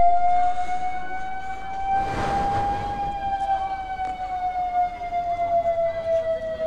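A siren sounding one long, steady tone that rises slightly and then slowly falls in pitch, with a brief rush of noise about two seconds in.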